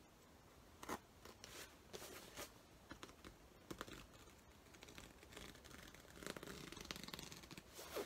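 Faint, scattered snipping and scratching of a seam ripper cutting through the stitching along a winter coat's zipper seam, with the coat fabric rustling under the hands. The sounds come closer together for the last couple of seconds.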